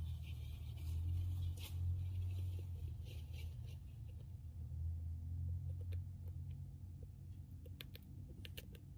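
Syrian hamster gnawing and chewing seeds from a seed-stick treat: faint, scattered small crunching clicks, sparser and sharper in the second half, over a low steady hum.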